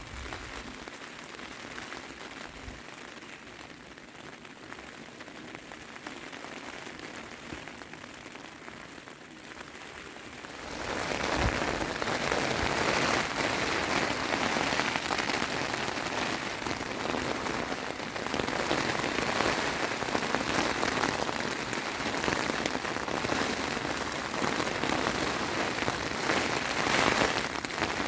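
Rain falling on a tent's flysheet, heard from inside the tent. Steady and lighter at first, it becomes much heavier and louder all at once about ten seconds in.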